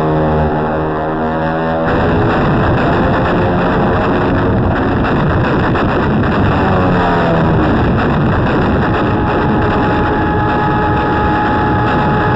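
Harsh, distorted old film soundtrack of an air attack on a warship. An aircraft engine drones for about the first two seconds. Then the ship's anti-aircraft guns open up in a dense, rapid barrage with bursts and blasts, and engine pitch glides and steady engine tones sound through it.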